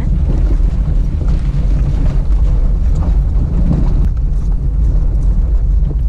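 A Fiat Uno driving on a rough dirt road, heard as a steady low rumble of engine and tyres with scattered knocks and rattles.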